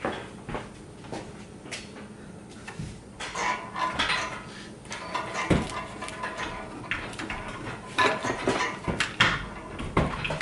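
Scattered metallic clinks and clanks of hand work on an engine being set into place on a shop crane, with a dull thump about five and a half seconds in.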